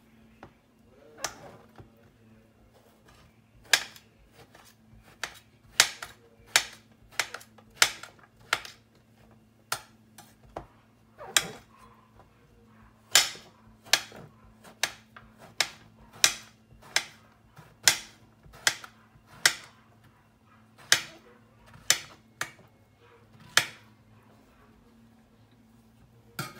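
Chef's knife chopping mushrooms on a glass cutting board, each stroke a sharp click of the blade striking the glass. The strokes are irregular, about one or two a second, some in quick pairs.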